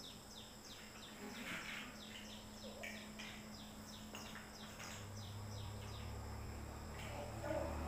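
Faint rural outdoor ambience: a rapid run of short, falling chirps, about three or four a second, over a steady high-pitched insect drone. A low hum comes in about five seconds in.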